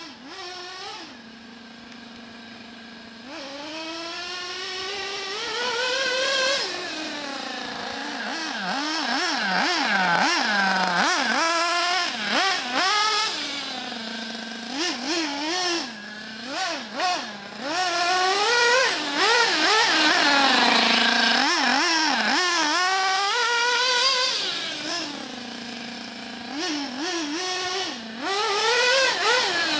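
Alpha F850 two-stroke nitro glow engine of a Radiosistemi Crono RS03 RC buggy, idling steadily for a couple of seconds, then revving up and down over and over as the buggy is driven. Its pitch rises and falls with each blip of throttle.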